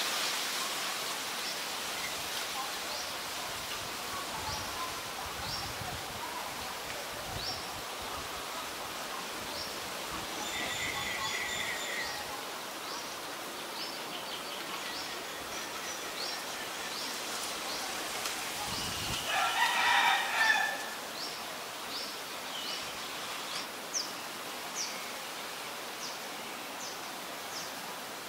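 A rooster crowing once about twenty seconds in, the loudest sound, with a shorter pitched call around eleven seconds in. Throughout, short high chirps repeat roughly once a second over a steady outdoor hiss.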